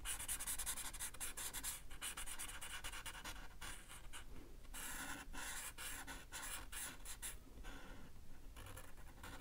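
Sharpie marker tips scratching across paper in quick back-and-forth coloring strokes, with a few short pauses.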